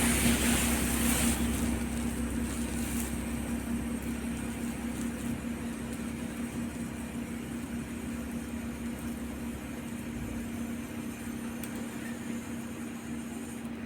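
1500 W fiber laser welding machine running: a steady machine hum, with a hiss over it for the first two or three seconds that then fades, leaving the hum.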